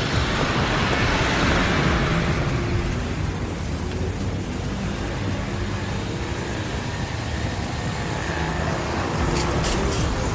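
Steady road traffic, with a car passing loudest in the first couple of seconds and a few light clicks near the end.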